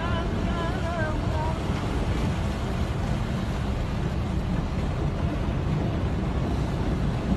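Steady low rumbling noise at an even level. A wavering musical melody fades out in the first second and a half.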